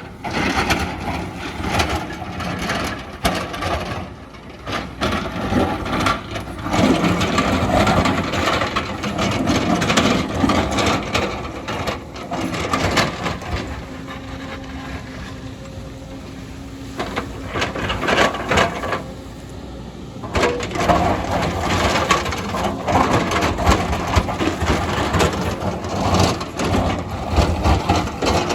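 Excavator digging into a hillside: the diesel engine runs under load while the bucket scrapes and crunches through soil and rock, with many sharp knocks. About halfway through the digging noise drops away for several seconds, leaving the engine's steady hum, then the crunching picks up again.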